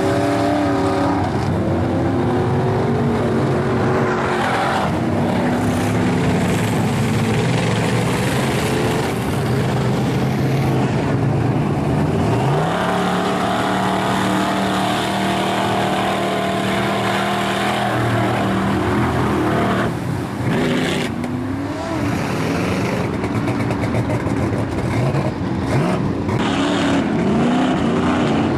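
Big-engined mud trucks revving hard as they plow through a mud bog pit. About twelve seconds in the engine pitch climbs and holds high for several seconds; near the end it dips and rises again with throttle changes.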